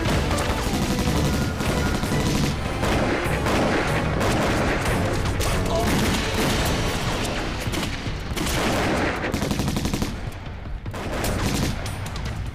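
Dense rifle and machine-gun fire, many shots overlapping without pause, easing off slightly about ten seconds in.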